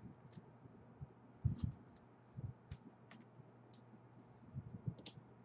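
Trading cards being handled on a table: a few soft knocks as cards are set down and short, faint scraping slides, irregularly spaced.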